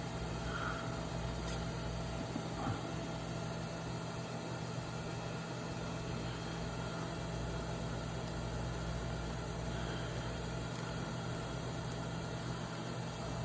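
A steady low electrical hum with a constant background hiss, broken only by a couple of faint clicks.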